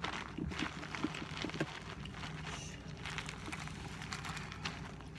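Light rustling and scattered small clicks from hands handling something close to the microphone, over a steady low hum.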